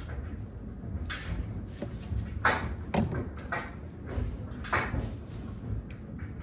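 Irregular knocks, scrapes and clatter, about half a dozen sudden bursts a second or so apart, over a low rumble.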